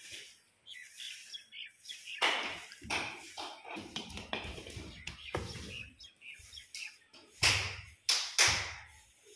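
Irregular taps and knocks, about seven over several seconds, the loudest two near the end, each ringing briefly in a bare concrete room.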